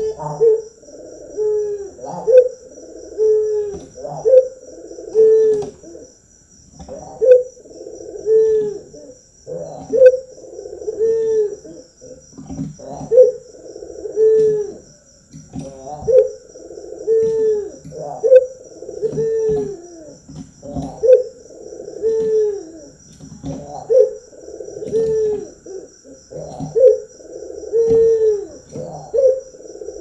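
Barbary dove (domestic ringneck dove, 'puter') cooing over and over in its bowing 'manggung' display. The deep, falling coos come about once a second, in runs with short pauses.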